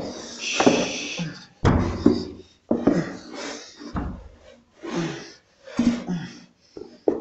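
A person's voice making short wordless sounds, about one a second, some breathy, with no words in them.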